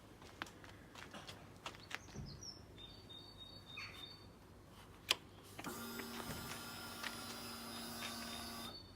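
Faint high chirps and scattered ticks, the 'bird noises' of a Yamaha MT-10's Remus exhaust. About five and a half seconds in, a louder steady mechanical whir starts and runs for about three seconds before cutting off.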